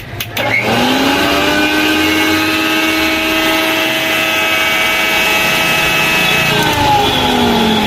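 Mixer grinder motor run empty with no jar fitted: it spins up with a rising whine, runs steadily for about five seconds, then winds down with a falling whine after being switched off. Running empty it runs very well: the motor itself is sound, and the noise problem lies in the jar's worn bush.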